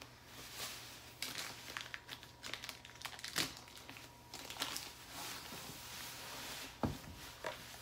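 Plastic wrapping around a Cricut Maker crinkling and rustling as it is handled, with two sharp taps about three and a half and seven seconds in.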